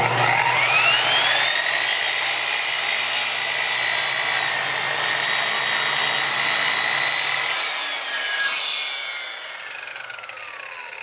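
TackLife miter saw's motor spins up with a rising whine, then runs steady while the blade cuts through the workpiece. About seven and a half seconds in it is switched off and the blade winds down with a falling whine.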